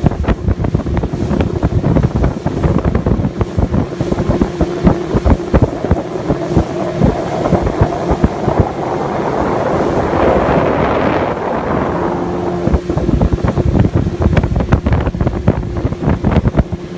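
Motorboat running at speed with a steady engine tone, under heavy wind buffeting on the microphone. Rushing water rises to a swell of hiss in the middle.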